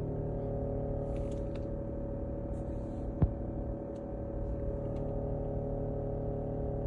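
Tata Nexon iCNG running on CNG, with a steady humming drone that the owner traced to a faulty CNG pressure regulator. One sharp click about three seconds in.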